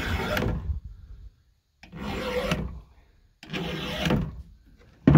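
7/32-inch round file rasping across the cutter teeth of a Husqvarna 572 XP saw chain, one stroke per tooth: three slow strokes about a second and a half apart, then a sharper, louder scrape just before the end.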